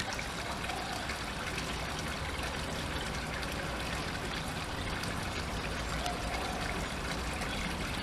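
Steady trickle of running water into a fish pond.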